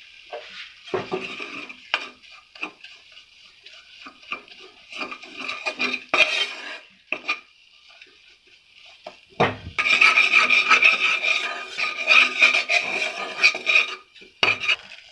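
Gram flour (besan) being stirred and scraped in a pan as it roasts in ghee, in uneven strokes that turn louder and busier for a few seconds in the second half. The flour is stirred continuously so it does not stick to the bottom or form lumps.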